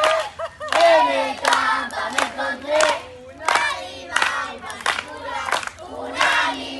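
A group of campers singing an action song together, clapping along in a steady beat of about three claps every two seconds.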